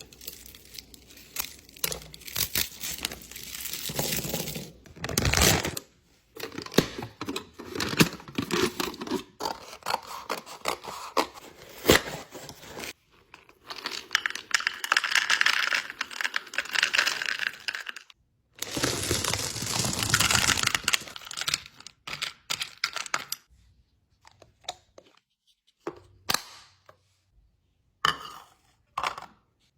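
Packaging being handled: tearing and crinkling with many sharp clicks and knocks, in bursts that stop abruptly, thinning to a few scattered clicks in the last several seconds.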